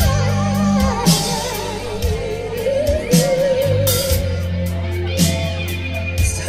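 Live band playing a slow rock ballad: steady bass notes, drum and cymbal hits about once a second, guitar, and a long melody held with a wide vibrato, as from a singer.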